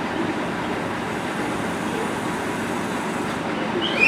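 KiHa 40 series diesel railcar idling steadily while standing at the platform. A short, high rising tone sounds near the end.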